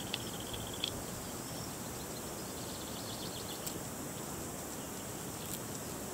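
Outdoor field ambience: a steady hiss with a faint, high, constant insect buzz, a few short chirping trills near the start and again about three seconds in, and a few faint ticks.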